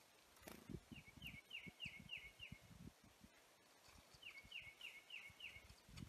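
A songbird singing two faint phrases of clear, down-slurred whistled notes, each phrase five or six notes at about three a second, the first about a second in and the second about four seconds in. Soft low thumps run underneath.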